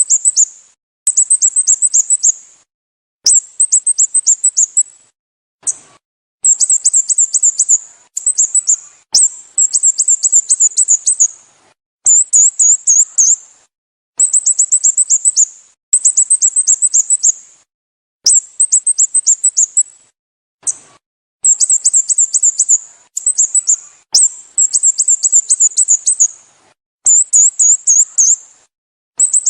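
Sooty-headed bulbul calling: high, rapid trains of short downward-slurred notes in bursts of one to two seconds, repeated with short gaps.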